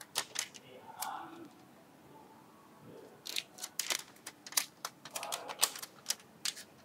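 Product packaging being opened by hand: irregular sharp clicks and taps with short plastic rustles, busiest in the second half.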